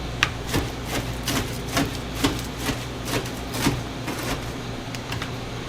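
A run of sharp taps and knocks from kitchen utensils working food, about two a second, that tails off near the end, over the steady low hum of kitchen ventilation.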